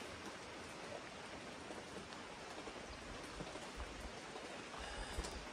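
Steady rain falling, a faint even hiss, with a couple of low rumbles in the second half.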